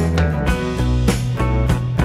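Band music with guitar, bass and a steady drum beat.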